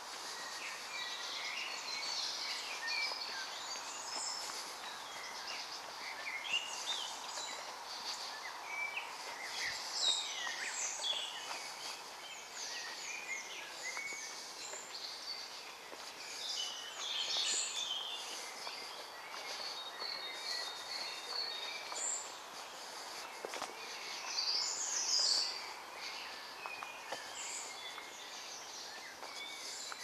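Several songbirds singing at once, a dense mix of overlapping high chirps, trills and warbling phrases with no break, over a faint steady hiss.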